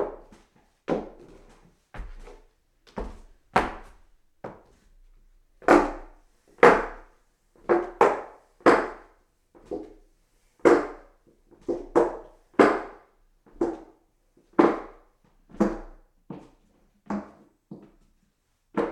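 Footsteps walking up hollow wooden stairs: each step lands with a resonant wooden thunk, at a steady pace of about one step a second, some steps heavier than others.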